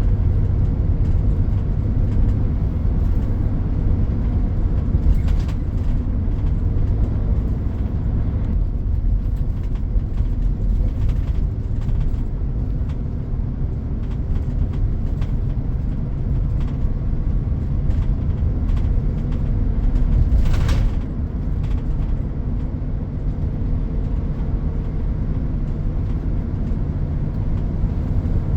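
Steady low rumble of road traffic and road-works machinery. A faint steady hum fades out about eight seconds in, and a brief louder rush passes about twenty seconds in.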